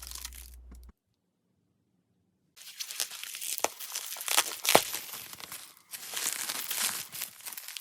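Crinkling and crackling handling noise with many sharp little clicks, broken about a second in by a second and a half of dead silence.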